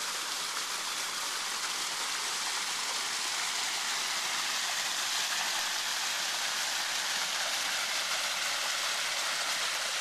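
Backyard pond waterfall: water spilling down stacked rocks into a koi pond, a steady splashing of falling water.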